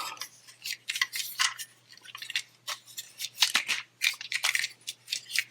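Plastic parts of a Transformers Sentinel Prime action figure clicking and scraping while being moved during transformation: an irregular string of short clicks and rubs.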